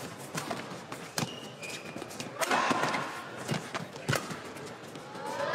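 Badminton rally: rackets striking the shuttlecock in quick, irregular sharp hits, with brief shoe squeaks on the court and the arena crowd briefly reacting about halfway through.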